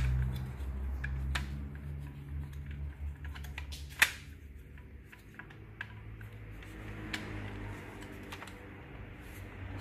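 Plastic clicks and rattles of an espresso machine's brew unit being handled and fitted back into the machine, with one sharp click about four seconds in.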